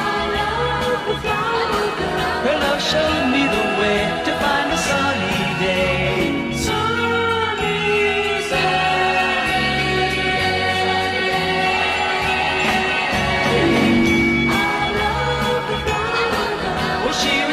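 Music: the closing part of a 1960s pop song, with layered group vocal harmonies over the full band.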